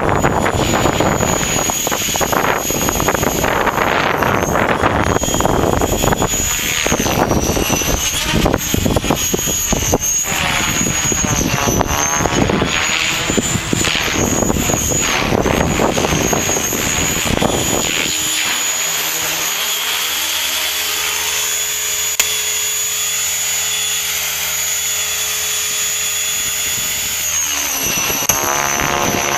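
Align T-Rex 550 electric RC helicopter in flight: a steady high motor whine and the hum of its Edge 523 mm rotor blades, with wind buffeting the microphone heavily until about two-thirds of the way through, when it eases and the rotor tones come through more clearly.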